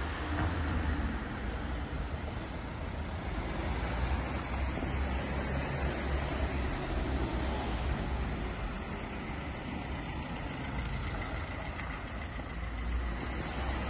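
Car driving along a city street amid traffic noise, a steady hum of engine and tyres with a deep wind rumble on the microphone.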